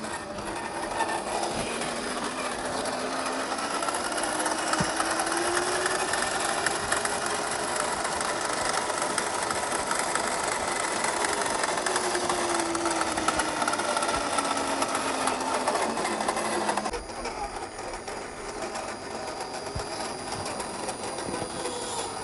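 RC crawler's electric motor and gear drivetrain whining, the pitch slowly rising and then falling as the throttle is varied. The whine drops off suddenly near the end and carries on quieter.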